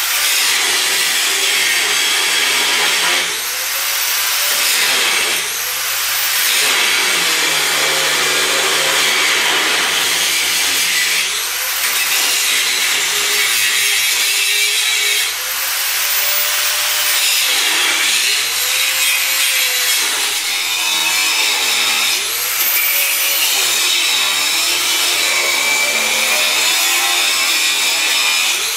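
Angle grinder grinding the steel of a snow-plow blade. Its motor drops in pitch each time it is pressed hard into the metal and spins back up when the pressure eases, over and over.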